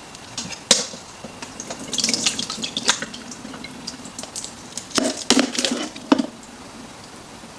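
Water dripping and trickling from oysters being drained, with light clicks and knocks from the container and strainer as they are handled.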